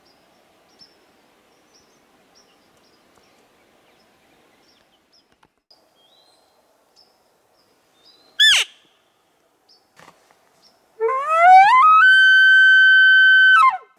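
Elk bugle call blown by a hunter: a low note gliding up in steps into a high whistle, held for about a second and a half, then falling away near the end. Earlier comes one short, high squeal, and faint bird chirps sound throughout.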